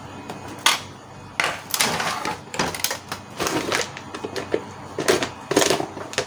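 Plastic parts of an opened-up Canon MP287 printer being handled and shifted: one sharp click, then a run of irregular scrapes, rattles and knocks as the mechanism is moved about.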